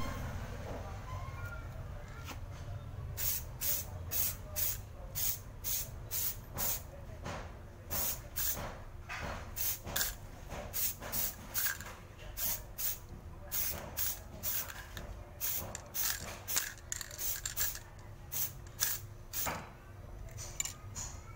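Aerosol spray paint can sprayed in many short, quick bursts, about two a second, as a small diecast car body is given a coat of paint.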